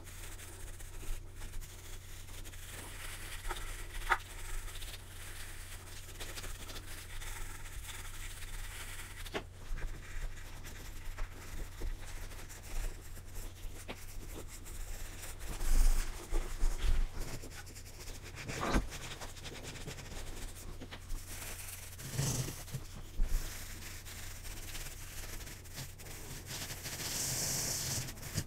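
A cloth and a paintbrush dust a wooden bookshelf-speaker cabinet, making soft irregular rubbing and scratching with a few louder knocks and bumps around the middle. A steady low hum runs beneath, and a hissy brushing stretch comes near the end.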